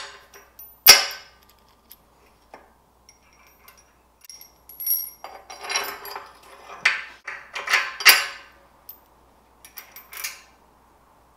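Steel saddle bracket and its bolts and nuts clinking and clanking against the jack mount as the bracket half is fitted and the bolts put on by hand. A sharp metal clank about a second in is the loudest, followed by a run of scraping and clanking and a few light clicks near the end.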